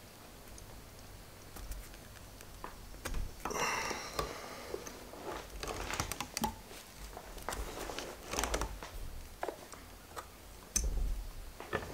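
Steel nails being pushed between the coils of a new HWH hydraulic-jack coil spring, giving irregular metallic clicks and scrapes, with a longer scrape about three and a half seconds in. The nails wedge the coils apart so the spring is stretched longer for fitting.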